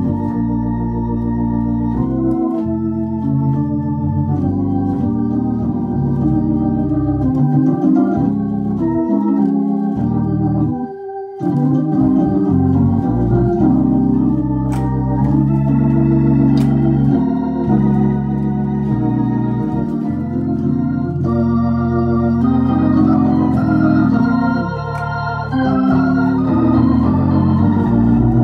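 Viscount Legend Live drawbar organ played through a Tornado T115 valve rotary speaker: sustained chords over a changing bass, with a brief break about eleven seconds in.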